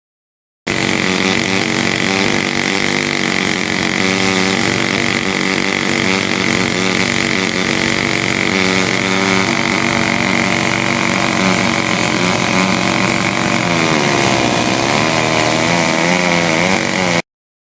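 Large Stihl two-stroke chainsaw running at high revs under load in a chainsaw mill, ripping through a log. The engine pitch sags and recovers near the end. The sound starts and stops abruptly.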